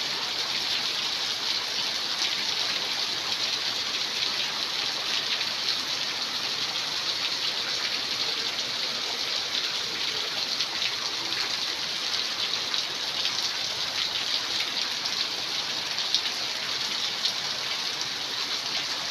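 Heavy rain falling steadily: a dense, even hiss of downpour with many small drop hits.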